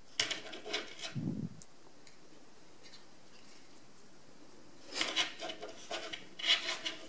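Green floral tape rustling and rubbing as it is wound around a wire stem, in two spells of handling, with a soft low thump about a second in.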